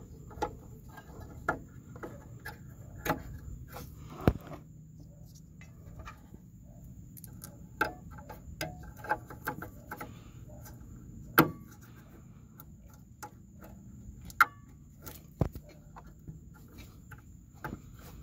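Scattered plastic clicks and knocks from hands working a wiring connector onto a fog light bulb in its housing, with the sharpest snaps about four, eleven and fifteen seconds in.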